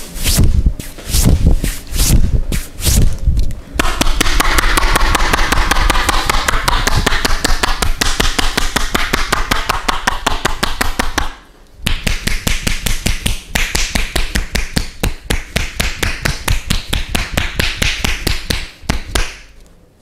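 Percussive massage on a man's back: the masseur's hands striking in quick succession through a T-shirt. A few separate strikes at first, then a fast, continuous drumming that stops briefly about halfway and picks up again before ending.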